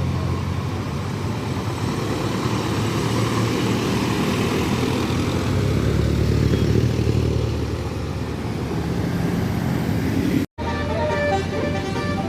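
Heavy engine rumble of passing tour buses and traffic, swelling about halfway through as a vehicle goes by close. After a sudden cut near the end, a tune of short pitched notes starts over the engine noise.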